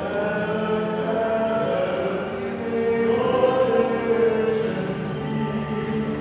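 Choir and congregation singing a hymn during Communion, slow held notes with voices in several parts.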